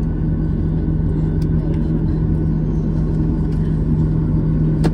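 Steady low drone and hum heard inside the cabin of a Boeing 737-800 standing with its engines running at idle after start. A single sharp click sounds near the end.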